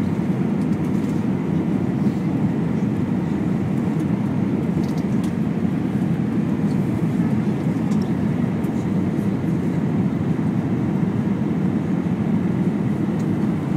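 Steady low rumble of an Airbus A320's engines and airflow, heard inside the passenger cabin during the final descent, with a few faint ticks.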